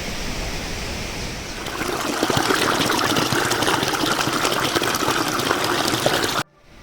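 Running water, a stream trickling and splashing, begins about two seconds in after a steady low rush. It cuts off suddenly near the end.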